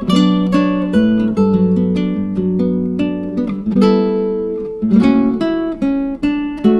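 Acoustic guitar music: plucked and strummed notes, each ringing and fading before the next.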